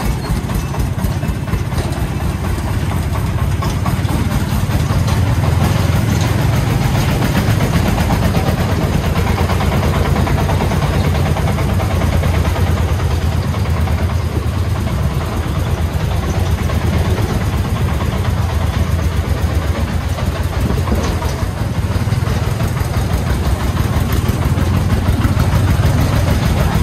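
Upgraded 40-horsepower diesel engine of a loaded three-wheeled công nông farm truck running steadily at low speed, getting a little louder about four seconds in.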